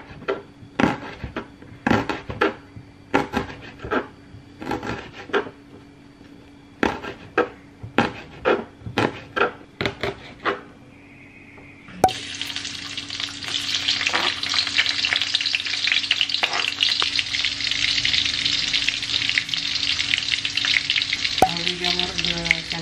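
Kitchen knife slicing shallots on a plastic cutting board: an irregular run of sharp cuts for about ten seconds. About twelve seconds in, the sliced shallots go into hot oil in a steel wok and start sizzling steadily.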